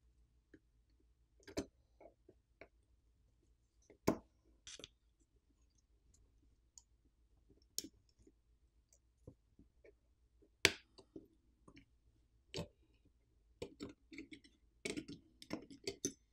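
Faint, scattered clicks and light taps of small repair tools on a smartphone's frame and internal parts as Torx T4 screws are undone and the main board is freed. Louder single clicks come about four and eleven seconds in, and a quicker run of clicks comes near the end.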